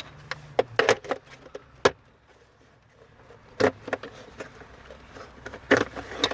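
Steering wheel puller and hand tools being handled: a string of sharp metal knocks and clinks, several close together in the first two seconds, then single knocks near the middle and near the end.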